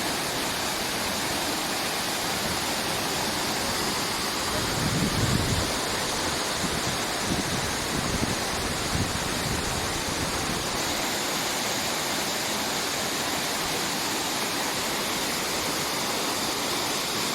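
Waterfall rushing steadily, an even roar of falling water, with a couple of brief low rumbles near the middle.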